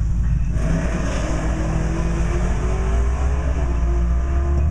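Pickup truck engines running at idle, heard from inside a stopped truck's cab. A deep steady rumble, with a second engine note and more noise joining about half a second in.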